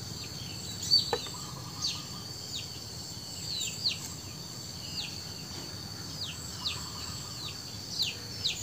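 Domestic chicks peeping: short high peeps that slide downward, roughly one a second and sometimes two close together, over a faint steady high insect drone.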